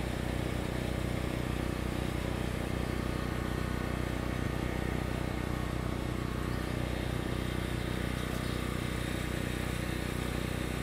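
An engine running steadily at an even speed: a constant hum that holds without change.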